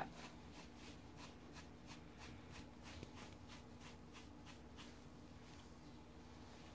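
Andis shedding tool raked through an English Cocker puppy's coat in short quick strokes, a faint rhythmic scratching about three or four strokes a second that fades after about five seconds, pulling out the dark undercoat.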